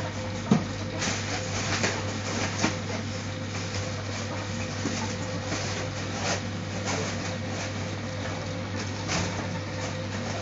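Ferrets scampering on carpet and scrabbling through a fabric play tunnel: scattered light rustles and clicks over a steady low hum.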